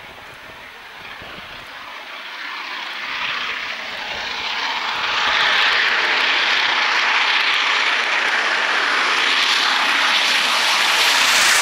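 Peppercorn A1 steam locomotive 60163 Tornado, climbing the grade, blowing off steam from its safety valves: a loud steady hiss that builds as the engine approaches and is loudest as it passes close by near the end. The safety valves lift because the boiler is at full working pressure.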